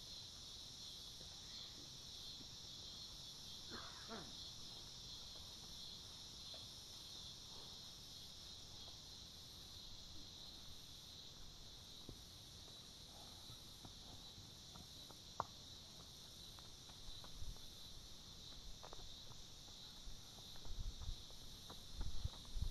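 Steady high-pitched chorus of insects droning in a grassy field, with a few faint ticks and some low thumps near the end.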